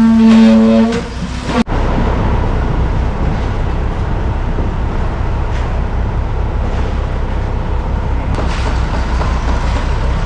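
A loud, steady, high-pitched drone from a machine for about a second and a half. It cuts off abruptly and gives way to a heavy diesel engine running steadily with a low, slightly pulsing rumble.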